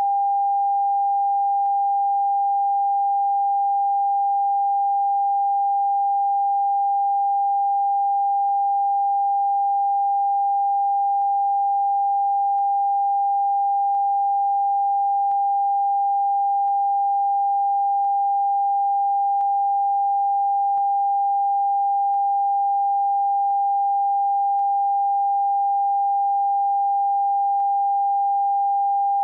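Television end-of-broadcast test tone: a single pure, steady tone held at one constant pitch without a break, the signal that the station has closed down and only the test card is on air.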